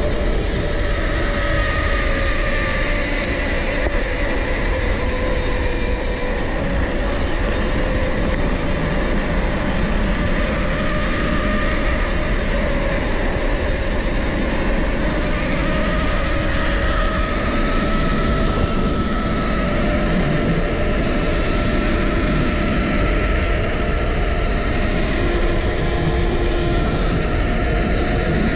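Mountain bike rolling at speed: a steady rush of wind and tyre noise with a low hum that drifts slowly in pitch as the speed changes.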